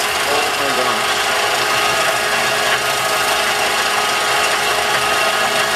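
CNC-converted milling machine running, its spindle-driven cutter engraving a pattern into wood: a loud, steady machining noise with a constant whine.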